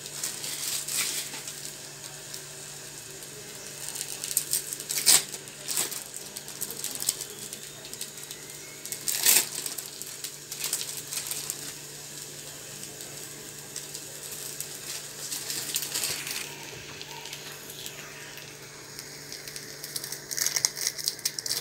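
Soft sizzle of a bread-and-egg pizza base frying in a nonstick pan over a steady low hum, with scattered crinkling and clicks as cheese slices are unwrapped and laid on, loudest about five and nine seconds in and in a cluster near the end.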